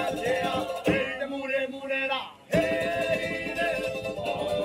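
Live island string-band music: men singing together over strummed ukuleles, with a drum beaten with sticks. About two seconds in the music drops away briefly, then starts again.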